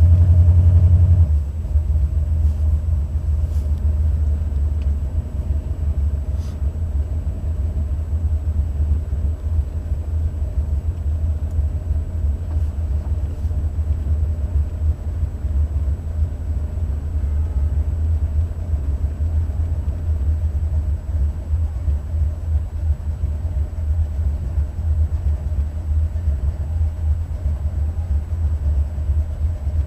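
Stage-1 Buick 455 V8 running steadily with a low, fast-pulsing rumble, heard from inside the car and slightly louder for the first second. The owner hears a driver-side top-end noise in it that he takes for a lifter not pumping up or a pushrod issue.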